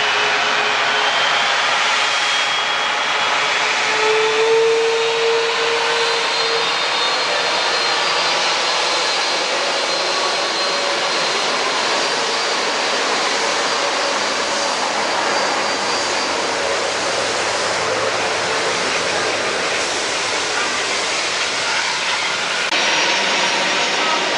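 Jet airliner engines running, a steady loud rush with faint high whining tones over it.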